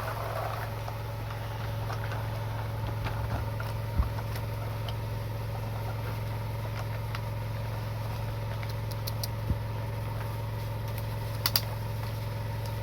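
A small motor hums steadily at one pitch, typical of a homemade mini excavator running. A few sharp knocks and clicks sound over it, about four seconds in, again near the middle and twice near the end.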